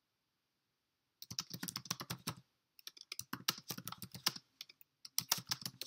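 Typing on a computer keyboard: three quick runs of keystrokes, starting about a second in.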